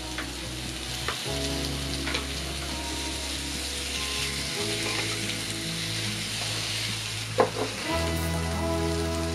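Sausages and thin slices of beef sizzling on a hot electric grill plate, a steady high hiss. A few light clicks of metal tongs against the plate, the sharpest about seven seconds in.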